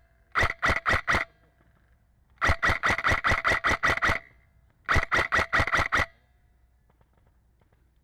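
Airsoft gun firing three rapid bursts of shots, about six or seven a second: a short burst at the start, a longer one about two and a half seconds in, and another about five seconds in.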